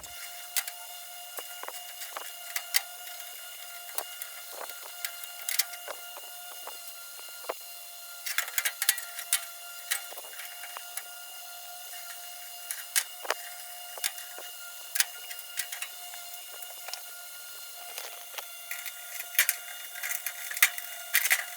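A small motor whining steadily at a constant high pitch, with frequent irregular clicks and rattles of small hard objects over it.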